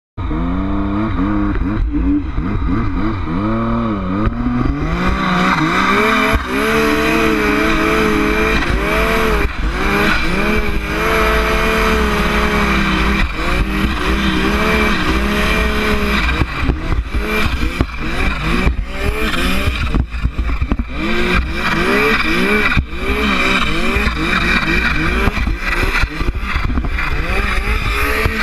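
Turbocharged 1115cc Yamaha Nytro snowmobile's four-stroke triple running hard, its revs rising and falling again and again with the throttle, heard from the rider's helmet over a steady rushing hiss.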